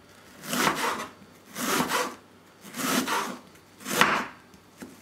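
Serrated kitchen knife slicing through half an onion on a wooden cutting board: four cuts about a second apart, each a short sawing stroke down to the board.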